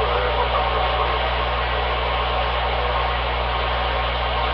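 Galaxy Saturn radio's speaker giving out steady hiss of static while receiving, with a low hum underneath. This is band noise coming in on the skip channel with no clear station readable.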